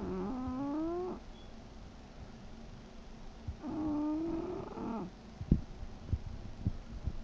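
English bulldog snoring: two long, pitched snores about three seconds apart, each rising in pitch as it goes. A sharp click comes shortly after the second snore, followed by a few fainter ticks.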